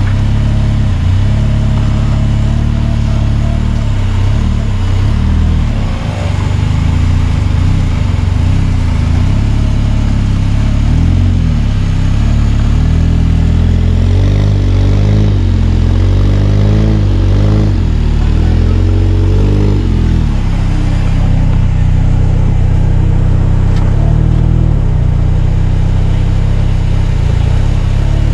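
Off-road competition four-wheel-drive's engine running loud, revved up and down in a quick series of bursts around the middle of the stretch.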